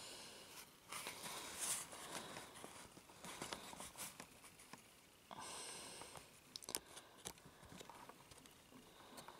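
Faint rustling and a few light clicks as small plastic toy figures are handled and moved by fingers, with patches of hiss.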